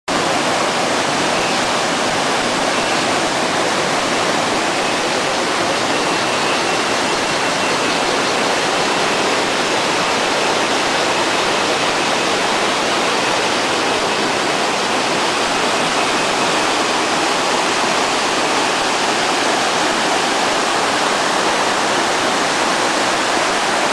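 Loud, steady rush of water from a forest stream flowing fast.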